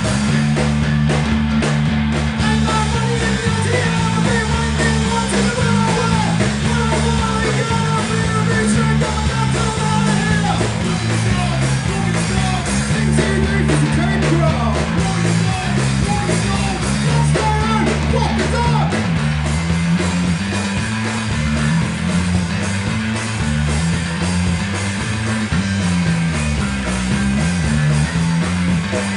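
Rock band playing live: a bass line stepping from note to note under drums and cymbals, with lead lines that bend in pitch over the top.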